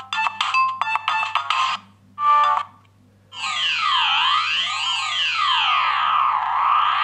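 Siemens C60 mobile phone playing its ringtones through its small speaker: a quick electronic melody cuts off just under two seconds in, then a short tone. After a brief pause, a new ringtone starts, with electronic tones sliding up and down over and over like a siren.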